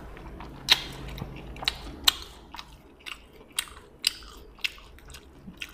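A person chewing a mouthful of food with the mouth closed, close to the microphone: wet smacking clicks about twice a second.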